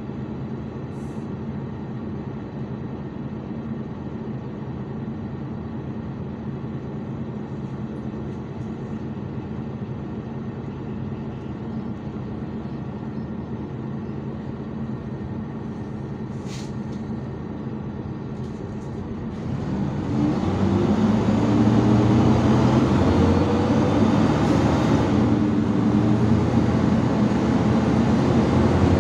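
IVECO Urbanway 12M city bus engine idling steadily while the bus stands still, heard from inside the passenger cabin. About twenty seconds in it gets much louder and its pitch climbs as the bus pulls away and accelerates.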